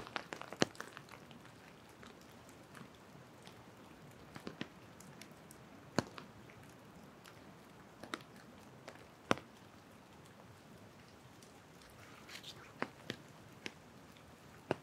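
Scattered raindrops dripping from the trees, landing as irregular sharp taps a second or more apart over a faint steady hiss of light rain.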